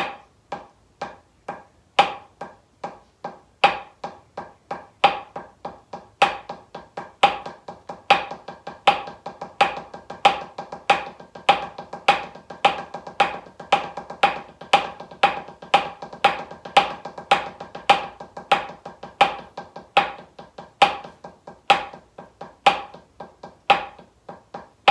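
Wooden drumsticks playing single paradiddles on a drum practice pad. The sticking starts slow with regular accented strokes, speeds up to a fast roll-like stream and eases back again: an open-closed-open (slow-fast-slow) run of the rudiment.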